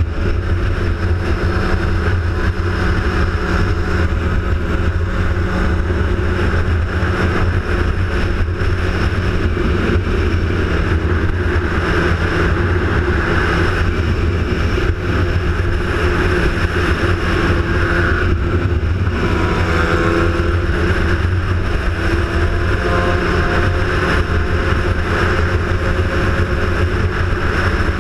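A vehicle running steadily on the move: a constant engine drone with a rush of noise over it, loud and unchanging throughout.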